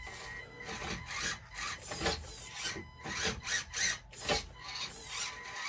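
A 1/24-scale RC micro crawler clambering over rocks: irregular scraping and rubbing of its soft comp pin tires and plastic chassis against the stone, where the front chassis rails catch on a rock and hang it up.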